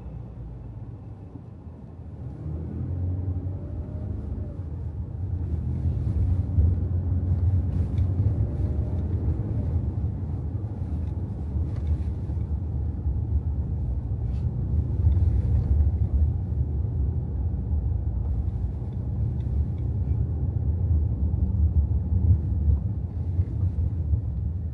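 Car driving through city traffic: a steady low rumble of engine and road noise, with an engine rising in pitch as it speeds up twice in the first ten seconds, and a few faint clicks.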